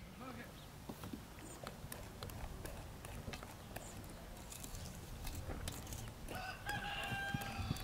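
Wire whisk clicking and scraping against an enamel bowl as cocoa is whisked into cake batter. A rooster crows once, with a long held call, near the end.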